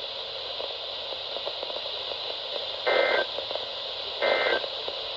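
NOAA Weather Radio heard through a receiver: steady radio hiss, then about three seconds in two short, harsh data bursts about a second apart. These are the Emergency Alert System end-of-message tones that close the required weekly test.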